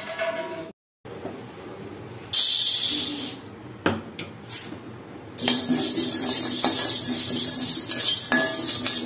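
Dry split dal being stirred with a slotted spatula in an iron kadai: a steady rattle and scrape of grains and utensil on the pan, starting about five seconds in. A loud, brief hiss comes about two seconds in.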